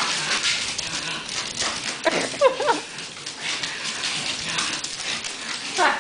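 Pugs scampering on a hardwood floor, their claws clicking, with a brief wavering whine from one of the pugs about two seconds in.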